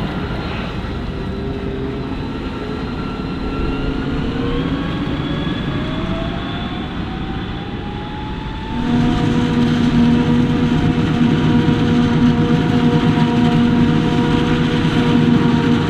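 Diesel engines of heavy harvest machinery: an engine note glides steadily upward in pitch, then about halfway through the sound changes abruptly to a louder, steady drone.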